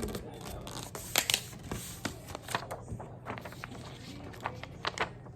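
A sheet of paper being folded and creased by hand: irregular rustles and crackles, the sharpest a little over a second in.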